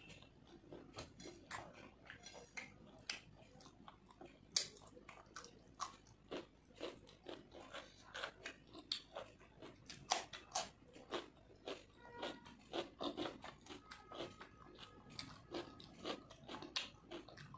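A person chewing a mouthful of fried rice and chicken curry eaten by hand: a run of short, wet mouth smacks and clicks, several each second.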